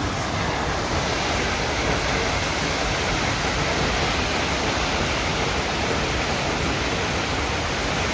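Large waterfall roaring steadily: a continuous, even rush of falling water.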